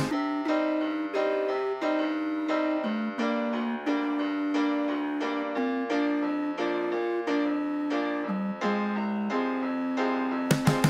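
Background music: a keyboard melody of evenly paced notes.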